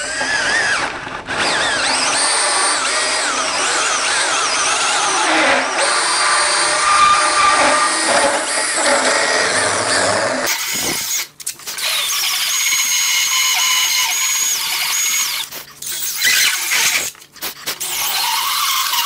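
Handheld rotary tool with a carbide burr grinding into wood, milling out a knot down to sound wood. It gives a high whine that wavers in pitch as the burr bites, and it briefly drops out about halfway through and again later.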